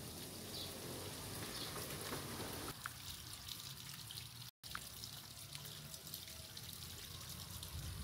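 Soft, steady hiss of light drizzle falling on foliage, with a brief dropout about halfway through.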